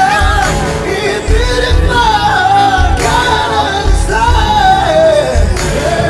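A man singing a slow, sustained melody over backing music with pulsing bass notes.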